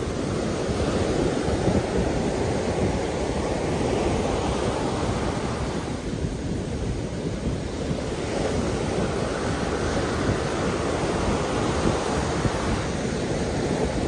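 Gulf of Mexico surf breaking close by and washing up a sandy beach, a steady rush of foam and water that swells and eases with each wave.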